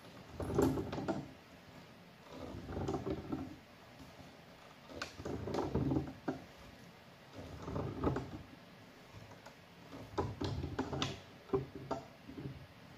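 PVC pipe fittings being handled and worked together by hand: repeated bouts of plastic scraping and rubbing, about every two to three seconds, with sharp clicks and knocks in between.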